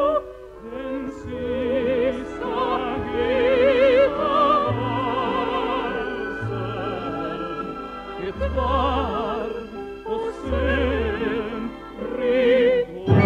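Operatic soprano singing an operetta waltz with a wide vibrato, in long phrases over a theatre orchestra whose low bass notes recur beneath the voice.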